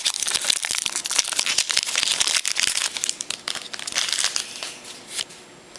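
Crinkling and crackling of a trading-card pack wrapper as cards are handled, dying down near the end.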